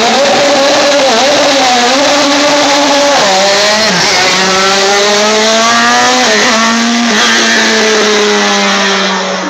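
Single-seater formula race car's engine running hard and very loud as it passes. Its pitch climbs, then drops sharply about three seconds in and again just past six seconds, like upshifts. The sound cuts off abruptly at the end.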